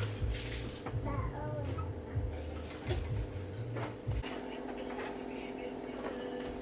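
Crickets chirping in a steady high-pitched drone. Low dull thumps and rumbles come and go over the first four seconds.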